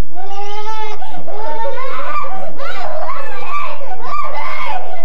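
Young children's high, wordless voices squealing and laughing: one long held squeal, then about a second in, several excited overlapping squeals and laughs.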